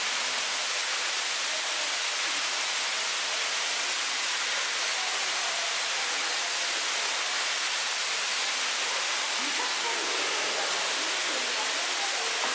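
A steady, even hiss, with faint voices of people talking in the background, clearest about ten seconds in.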